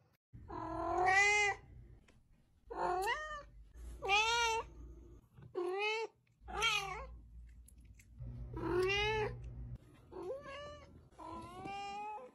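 A domestic cat meowing over and over: about eight drawn-out meows that bend up and down in pitch, each half a second to a second long, with short pauses between them.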